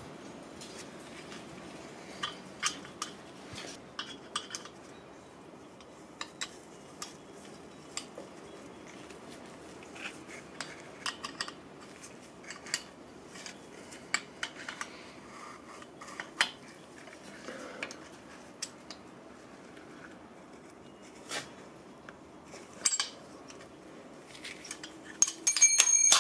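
Steel open-end wrench clinking and ticking irregularly against the jam nut of an S&S Quickee adjustable pushrod as the nut is spun up. Near the end, a louder metal clink rings on briefly.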